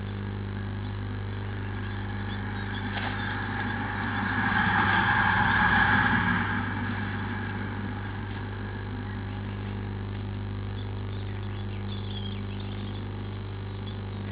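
Steady low electrical hum from a nest-box camera, with a louder rustle that swells up about four seconds in and fades by about seven.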